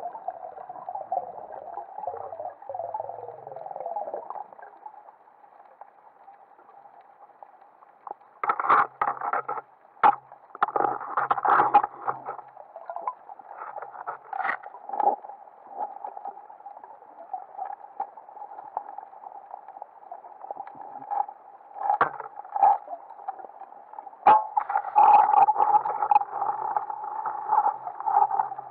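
Muffled underwater sound through a camera's waterproof housing: a steady hum, broken by irregular bursts of rushing, bubbling and knocking as the speargun and diver move in the water.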